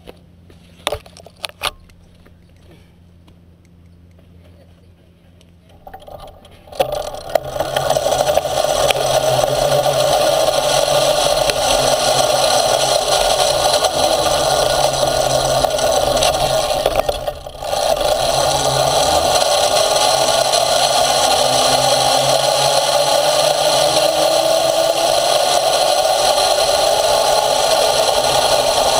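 A few sharp clicks, then about six seconds in a small motorized pusher cart starts driving, its motor running and its wheels rolling and rattling over pavement. The sound holds steady apart from a brief dip in the middle, and a tone slowly rises near the end as it speeds up.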